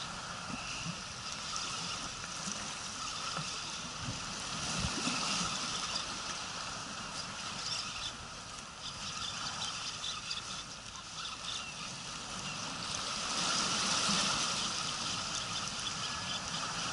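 A steady wash of moving water that swells somewhat toward the end.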